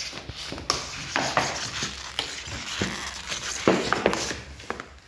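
Paper shopping bag rustling and crinkling in short irregular bursts as a cat shifts around inside it.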